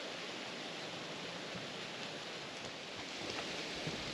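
Wind rustling the leaves and needles of pine trees: a steady, even hiss, with a few faint ticks about three seconds in.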